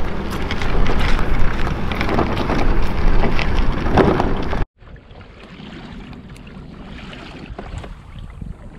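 Wind blowing across the microphone, loud and gusty with a few clicks, then cut off suddenly about halfway through. After the cut comes a quieter, steady wind with water around a kayak on open water.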